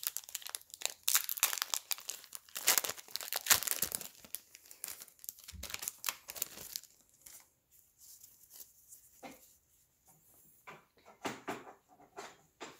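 Foil wrapper of a Pokémon card booster pack crinkling and tearing as it is opened, dense crackling for about the first seven seconds. It then gives way to fainter, scattered rustles of the cards being handled.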